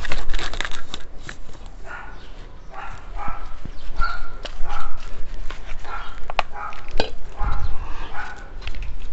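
A dog barking in short calls repeated about every half second, starting about two seconds in, with a few sharp knocks among them.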